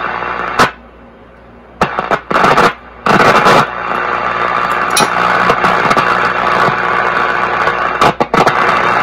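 Zenith Trans-Oceanic H500 tube radio hissing and crackling with static on the broadcast band, no station coming in. The hiss cuts out and back in suddenly a few times, with sharp clicks.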